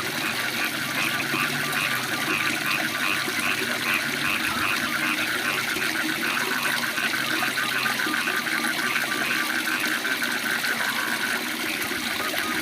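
Waterfall rushing steadily, with a chorus of frogs calling in rapid, evenly repeated pulses over it.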